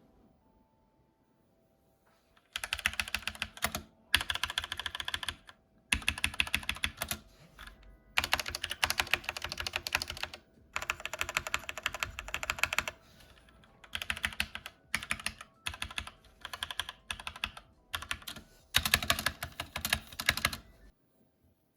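SteelSeries Apex 7 mechanical keyboard with red linear switches being typed on in fast runs of keystrokes, with short pauses between runs. It starts about two and a half seconds in.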